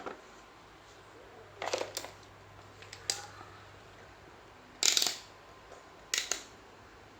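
A series of short clicks and clatters from tools and parts being handled on a repair bench, about five in all, the loudest about five seconds in, over a faint steady hum.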